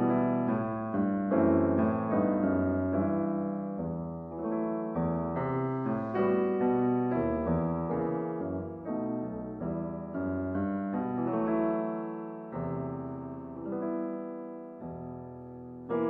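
Solo piano music: a slow melody over chords, each note struck and left to fade.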